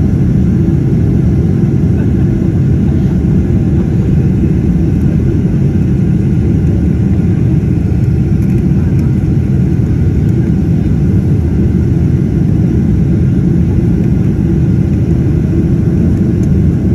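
Steady, loud cabin roar of a Boeing 777-300 airliner in flight: jet-engine and airflow noise, deep and unchanging, heard from a window seat over the wing.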